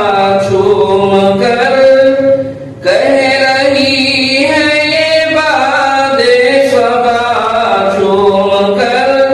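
Unaccompanied devotional singing of an Urdu naat: a voice holding long, wavering melodic notes, with a short breath pause about two and a half seconds in.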